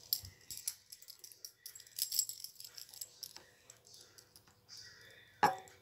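Small metal nail clipper handled against the fingernails with light clicks and rattles, then one sharp snap with a brief metallic ring near the end as it clips a nail.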